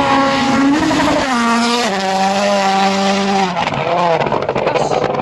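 Turbocharged rally car engine at high revs, its note dropping in two steps about a second and two seconds in as the driver shifts or lifts, then wavering and crackling near the end.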